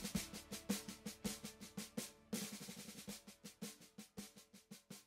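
Quiet snare drum playing rolls and steady strokes, several hits a second, over soft held music notes.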